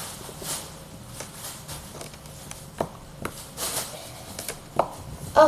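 Scattered light plastic clicks and rustling, a few sharp taps among soft scuffs, made by a cat knocking at plastic things.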